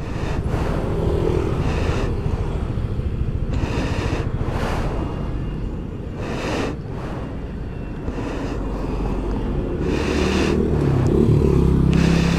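Yamaha Aerox scooter ridden at road speed: a steady rush of wind and road noise over the running engine. Near the end the engine sound grows louder and its pitch wavers up and down.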